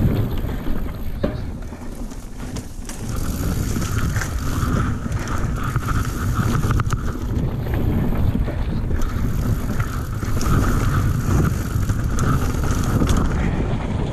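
Yeti SB150 mountain bike descending a dirt flow trail at speed: wind rushing over the action camera's microphone, tyres rolling on dirt, and sharp rattles and clicks from the bike. A buzzing whir comes and goes twice, from a few seconds in to about five seconds and again over the second half.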